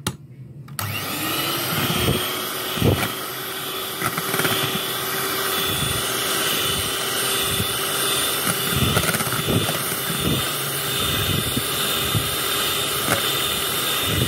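Electric hand mixer switched on about a second in, its motor whirring up in pitch and then running at a steady whine as its twin beaters whip cream in a bowl, with uneven low thuds throughout.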